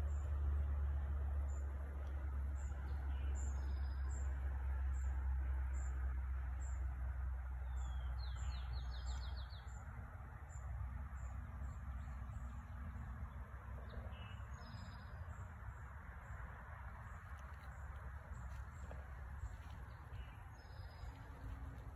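Woodland birds calling: a thin, high chirp repeating a little more than once a second, with short song phrases every few seconds. A low rumble underneath, louder in the first half.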